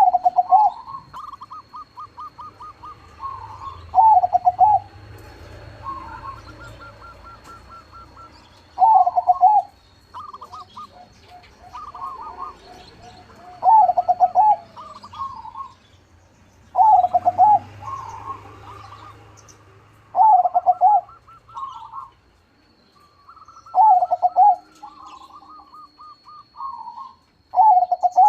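Crossbred perkutut (zebra dove) singing: loud, short cooing phrases about every 3 to 5 seconds, with fainter, higher, rapidly trilled cooing between them.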